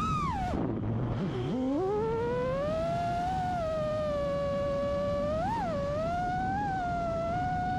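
FPV quadcopter's brushless motors and props (Hypetrain 2306 1750KV) whining, the pitch following the throttle. It dips low about a second in, then climbs and holds steady, with a brief upward blip around the middle.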